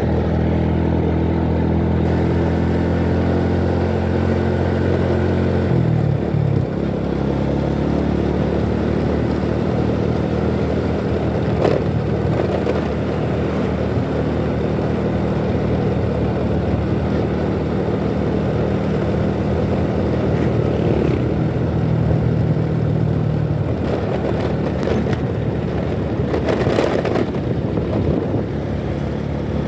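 Motorcycle engine running while riding in traffic, with road and wind noise over it. The engine note shifts about six seconds in, and a few short knocks or rattles come through in the middle and near the end.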